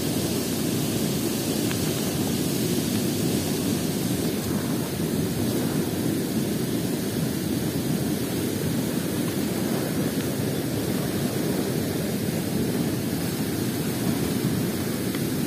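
Fast-flowing, churning river water rushing steadily past.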